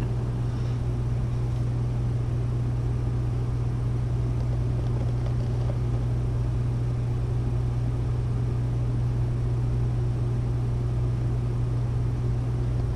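A steady low hum with an even rushing noise over it, unchanging throughout: constant background machine or room noise.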